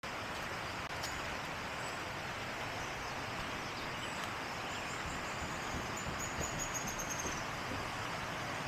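Steady rush of river water, even and unbroken. About halfway through, a bird sings a high trill of quick repeated notes that falls slightly in pitch and stops near the end.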